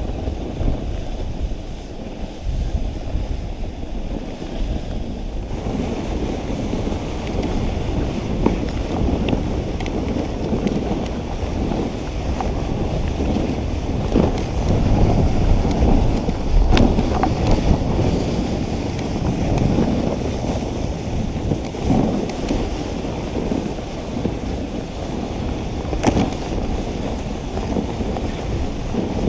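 Wooden dog sled running over a packed snow trail: the runners sliding and scraping on the snow, with wind noise on the microphone and a few sudden knocks along the way.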